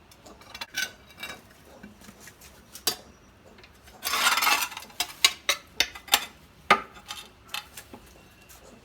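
Hard clinks and scrapes, like a metal tool on a hard surface, with a longer scrape about four seconds in followed by a run of sharp clicks.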